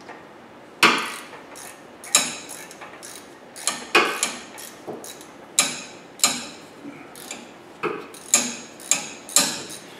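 Hand ratchet wrench on the differential cross-pin locking bolt, clicking in short sharp metallic bursts, about one every half second to a second, as the bolt is run in.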